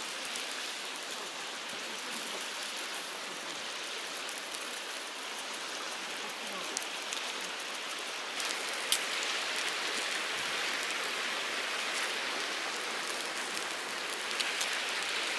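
Meat grilling on a net over charcoal, a steady sizzle with scattered crackles and one sharp pop about nine seconds in.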